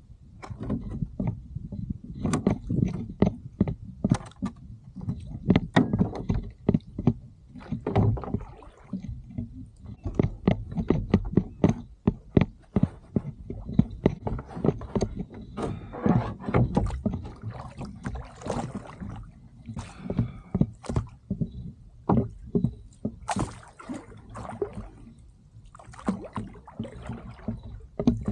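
Oars being worked in a duck punt: frequent knocks and clicks of the oars in their oarlocks and against the hull, with water sloshing around the blades and boat.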